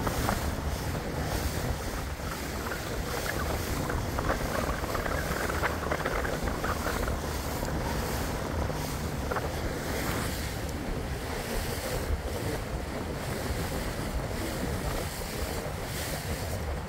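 Steady wind buffeting the microphone over water washing, recorded from a small boat moving slowly on the river.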